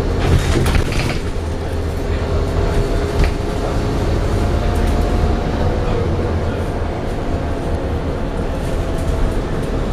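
Scania N230UD double-decker bus heard from the upper deck while under way: the diesel engine's steady low drone with road noise and interior rattles. A few sharp knocks and rattles come about half a second to a second in and again around three seconds in.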